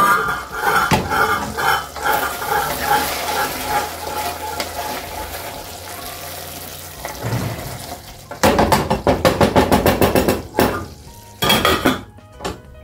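Wooden spoon stirring and scraping beef stew in a stainless steel saucepan, with metal clinks of the pan and lid. A run of fast, even scraping strokes comes about two-thirds of the way through, and the lid clatters back onto the pan near the end.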